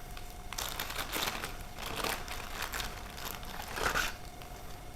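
Packaging crinkling as it is handled, in several short rustles, the last one about four seconds in being the loudest.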